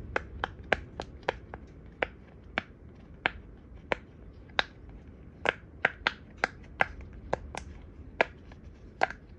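Silicone pop-it fidget toy, its bubbles pressed through one at a time by fingers, each giving a sharp pop. About twenty pops at an uneven pace, roughly two a second.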